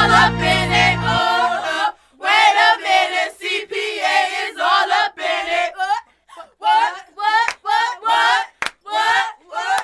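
School children's choir singing a cappella in short chanted phrases, with a few sharp hand claps in the second half. The instrumental backing with its bass cuts out about a second in.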